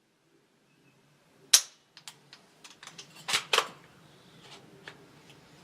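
AR-15 rifle firing a single shot about one and a half seconds in, followed by a few light clicks and two sharper knocks about two seconds later.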